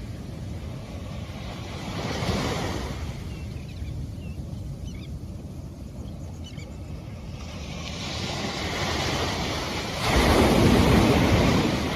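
Waves washing in and drawing back: a rushing surf noise that swells and ebbs, loudest near the end, with a few faint high chirps in the middle.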